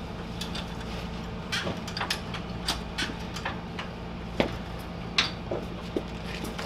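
Irregular metallic clicks and knocks from a hand pallet jack as its handle is worked under a heavy crated machine, over a steady low hum.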